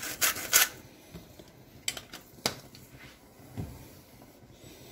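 Hand-twisted salt grinder grinding salt in quick rasping turns that stop about half a second in. Then a couple of sharp clicks and a soft knock.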